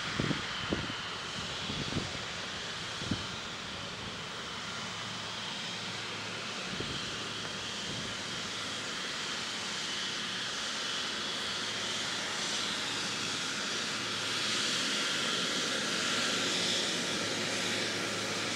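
Jet airliner's engines running with a steady high whine, growing louder over the last few seconds. A few low thumps sound near the start.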